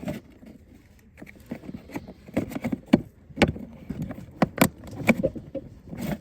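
Hard plastic clicking and knocking as the foot-pedal on-off switch and its housing are handled and fitted back into a kids' electric ride-on car: irregular sharp clicks, sparse at first and coming several a second from about two seconds in.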